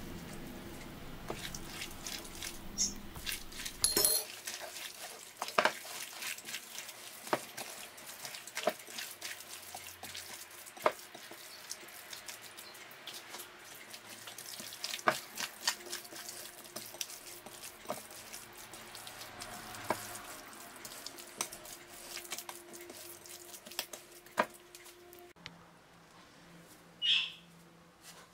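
A spoon and then bare hands mixing a wet stuffed-vine-leaf filling of minced meat, rice, paste and olive oil in a glass bowl: a steady wet mixing noise with scattered clicks. Near the end it drops to a faint hum with one short high chirp.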